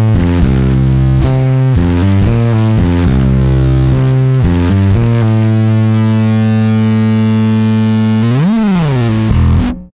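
Spector NS-2 electric bass played through a Darkglass Duality fuzz pedal, heavily distorted. A riff of short notes runs for about five seconds, then one long held note swoops up in pitch and back down near the end, and the sound cuts off abruptly.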